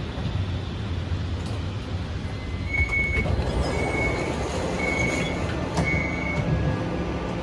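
Kaohsiung MRT Red Line metro train rumbling at the platform, then a door warning signal beeping four times, about once a second, as the doors close.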